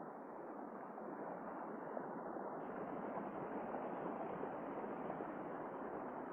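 Steady rush of flowing river water, an even noise with no distinct strokes.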